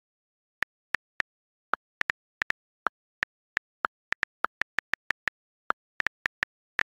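iPhone on-screen keyboard click sounds, one short click per key tap, about two dozen in an irregular typing rhythm with dead silence between them.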